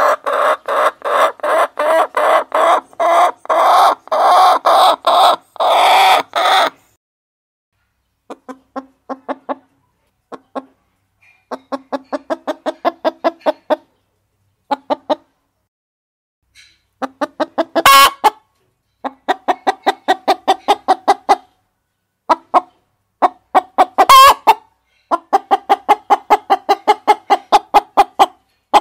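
Hens clucking in quick runs of short, repeated clucks, about three or four a second, broken by brief silent gaps. Two sharper, louder sounds stand out in the second half.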